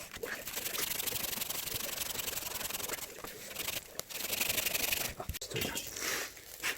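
Dry, gritty rubbing or grinding noise with a fast, fine ticking through it: one stretch of about three seconds, then a shorter one about a second later.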